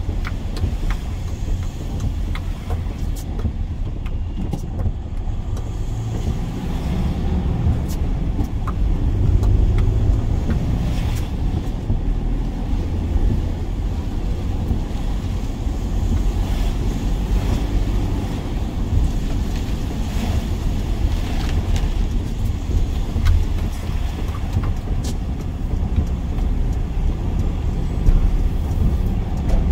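Steady low rumble of a van on the move, engine and road noise heard together, with occasional light ticks.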